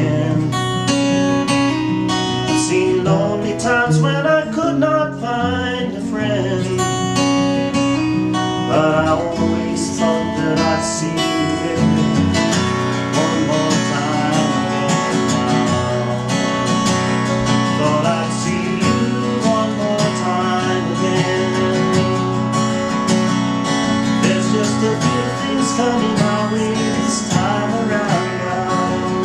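Acoustic guitar playing the instrumental ending of a ballad after its last sung line, strummed and picked.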